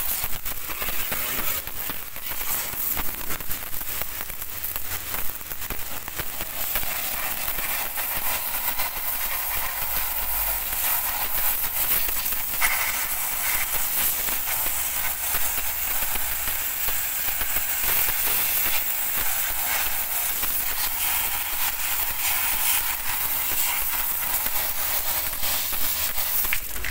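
Pressure washer spraying a jet of water onto a vehicle's drum brake assembly, with the drum removed: a loud, continuous hiss of spray and water spattering off the brake shoes and backing plate.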